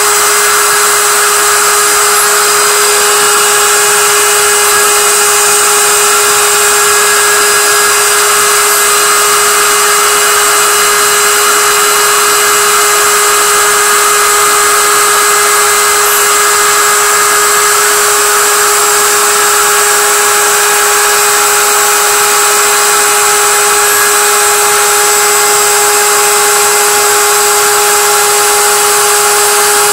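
GP10050 CNC milling machine's spindle cutting 1.5 mm brass sheet with a small end mill at a 500 mm/min feed: a loud, steady whine with a hiss above it, unchanging throughout.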